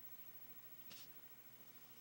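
Near silence: room tone, with one faint short rustle about a second in.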